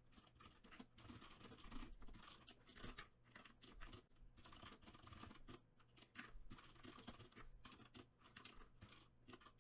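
Faint typing on a computer keyboard: quick, irregular key clicks with brief pauses.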